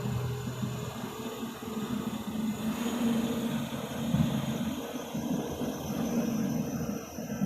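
Diesel engine of an earthmoving machine (backhoe loader or excavator) running steadily under working load, its hum wavering in level.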